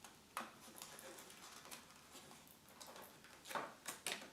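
Paper card rustling and tapping as a paper handle's ends are pushed into slots in a paper basket, with a crisp crackle about half a second in and a few more near the end.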